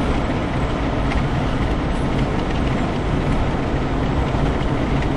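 Steady road and engine noise inside the cabin of a moving vehicle, a low even rumble with tyre hiss above it.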